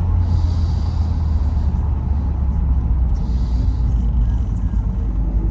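Cabin sound of a 1957 Ford Thunderbird's V8 with mellow mufflers cruising steadily at a little over 50 mph: a low, even rumble.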